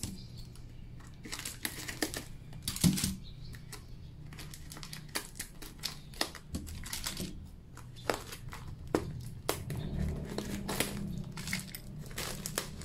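Brown paper tape crinkling and tearing as it is picked and peeled off a cardboard tube by hand: irregular crackles and scratches, with a louder tear about three seconds in.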